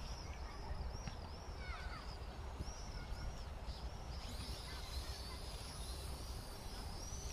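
Small birds calling over and over with short, high, arched chirps, thicker from about four seconds in, over a steady low rumble.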